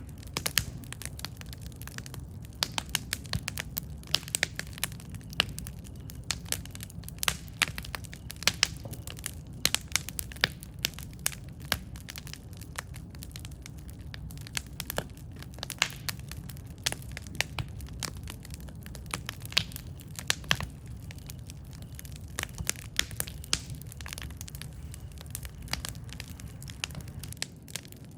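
Campfire burning, with a steady low rumble and frequent sharp, irregular crackles and pops from the burning wood.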